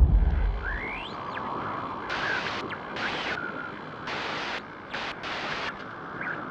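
GoPro logo intro sound effect: a deep boom fading out at the start, a rising whistle about a second in, then a steady hiss with about four short bursts of brighter hiss.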